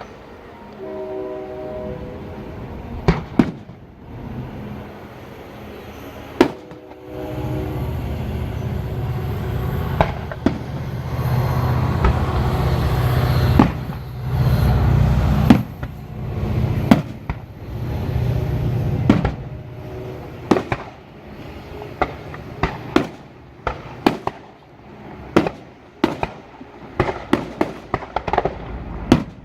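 Fireworks display: repeated sharp bangs and booms, with a heavy rolling rumble through the middle and the bangs coming faster near the end.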